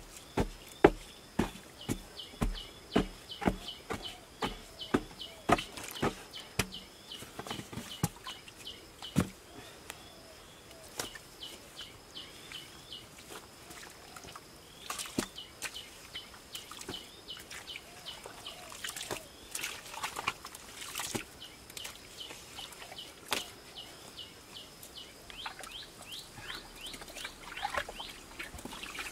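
Rhythmic knocks of a digging tool striking earth at the bottom of a deep hand-dug well pit, about two a second at first, then slower and irregular. A bird repeats a high chirping call in the background.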